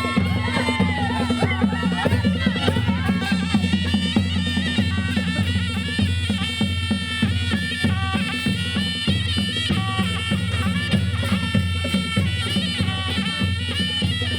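Music: a melody over steady, continuous drumming.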